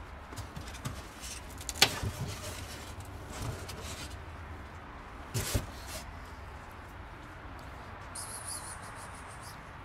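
Scattered handling knocks and rustles around a broken styrofoam box, the loudest about two seconds and five and a half seconds in, over a low steady background; a faint high hiss comes in near the end.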